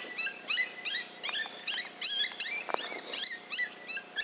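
Coyotes yipping: many short, high-pitched calls that rise in pitch, overlapping at several a second.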